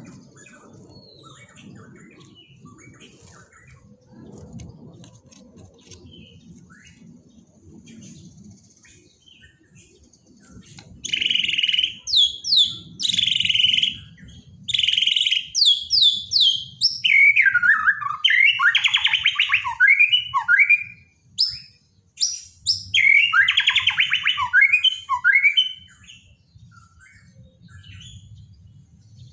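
Borneo white-rumped shama singing. After faint scattered chirps, loud phrases start about eleven seconds in: repeated high notes with quick downward sweeps, then fast rattling trills falling in pitch, twice.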